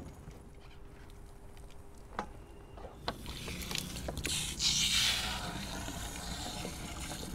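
Water from a hose splashing onto the deck and running into the deck fill fitting, filling the sailboat's fresh-water tank. It starts as a hiss about three seconds in and is loudest near the middle, after a few light knocks.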